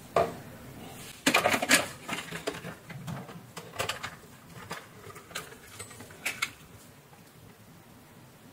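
Clicks and light rattles of a circuit board and its wire connectors being handled and pressed into place in a plastic blender base: a quick cluster of sharp clicks about a second and a half in, then a few single clicks, going quiet near the end.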